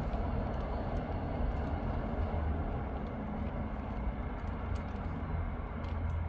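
Steady road-traffic noise from cars, vans and a bus passing on a multi-lane road: a continuous low rumble of engines and tyres.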